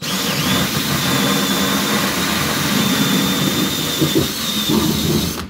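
DeWalt 20V cordless drill driving a 6-inch hole saw in reverse through 5/8-inch ceiling drywall inside a silicone dust bowl: a steady high motor whine over grinding. It starts at once and stops suddenly near the end as the saw breaks through.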